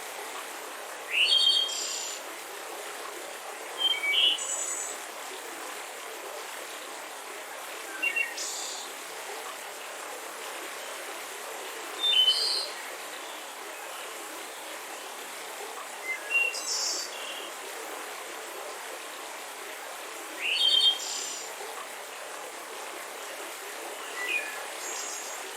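Mountain river flowing steadily, with a bird calling about every four seconds over it: short calls, each a quick rising note followed by high chirps.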